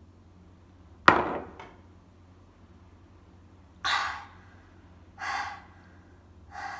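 A woman breathing out hard through a wide-open mouth, her mouth burning from extremely spicy fire noodles: one sharp, loud exhale about a second in, then three shorter breathy puffs.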